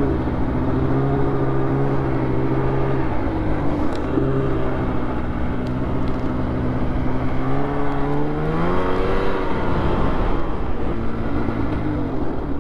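Snowmobile engine running under way on a snow trail, holding a steady pitch, then revving higher about eight seconds in before easing back off near the end.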